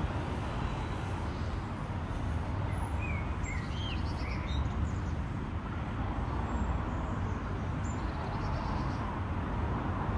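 City street ambience: a steady rumble of road traffic, with a few short bird chirps about three to four and a half seconds in.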